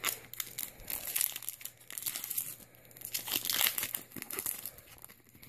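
Foil Pokémon Ancient Origins booster pack being torn open and crinkled in the hands: a dense run of crinkling and small ripping sounds.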